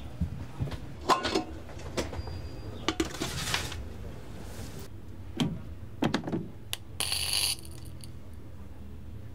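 Clicks and light clatter, as of utensils and containers being handled in a food-truck kitchen, scattered over a steady low hum, with a short burst of hiss about seven seconds in.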